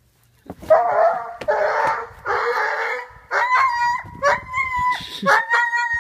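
A dog whining in a series of drawn-out, high-pitched cries, from about halfway through. Before that comes a rougher, noisier stretch.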